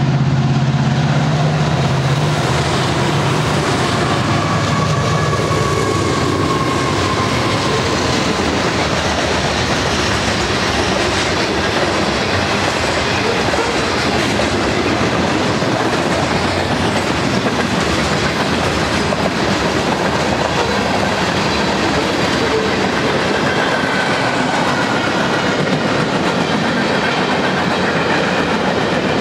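A Union Pacific manifest freight train passing. The lead EMD diesel locomotives' engines drone low for the first couple of seconds, then the freight cars roll by with a steady rumble and clickety-clack of wheels over rail joints, with a faint high wheel squeal twice.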